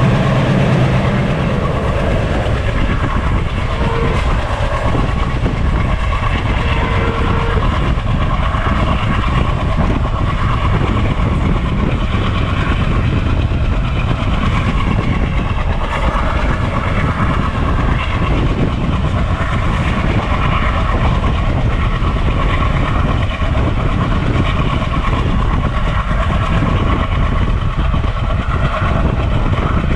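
Train rolling past at a steady speed, its wheels clattering over the rails, with faint ringing tones above. A strong low hum drops away about a second in.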